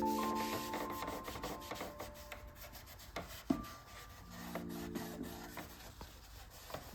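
Soft background music with held chords that fade out and come back partway through, over faint scraping and clicking, with one sharper knock about halfway.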